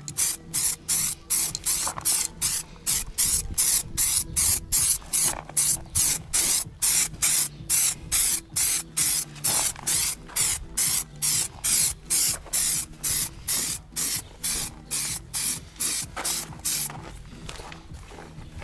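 Aerosol can of primer spraying in rapid short bursts, about three a second, with a short pause near the end.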